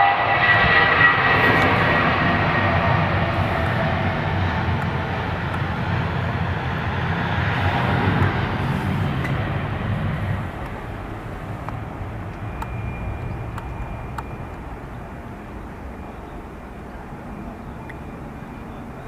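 Airbus A320 jet engines at takeoff thrust, a loud roar with a whine near the start, fading steadily as the airliner climbs away. About ten seconds in it drops off to a distant low rumble.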